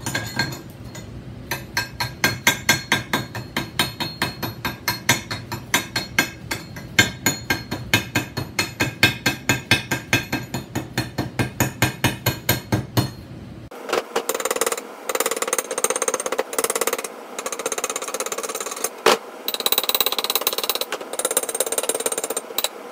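A chipping hammer striking a freshly welded steel snow plow part in quick, even blows, about four a second, knocking off the weld slag. About two-thirds of the way through, the blows stop and give way to scratchy scraping strokes on the metal as the weld is cleaned.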